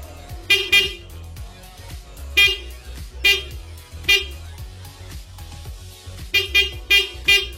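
The stock electric horn of a Yamaha Mio Sporty scooter sounds in about nine short beeps: two quick ones, three spaced about a second apart, then four in quick succession near the end. This is the standard stock horn, which is known to be weak. Background music plays underneath.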